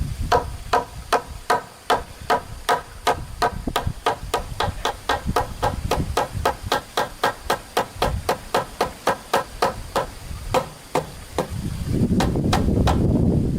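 Rapid, even tool strikes on a hard surface, about three a second, each with a short ringing tone; the strokes space out a little near the end, when a rough low rustling noise joins in.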